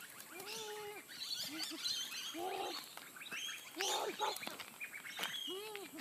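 Dogs yelping and whining excitedly, about five short arched high-pitched yelps, with birds chirping faintly behind them.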